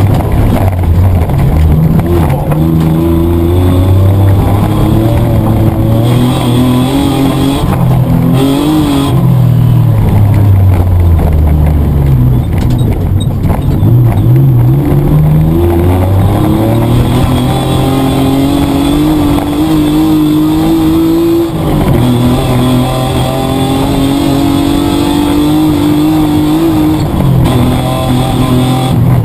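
Petrol Mitsubishi Triton ute's engine heard from inside the cab, driven hard: the pitch climbs under acceleration and drops back sharply several times as it shifts gear or lifts off.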